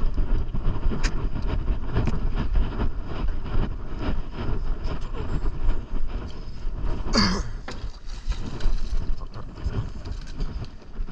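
Wind buffeting the microphone, with a heavy low rumble and scattered knocks from handling on the boat. A brief voice-like yelp sounds about seven seconds in.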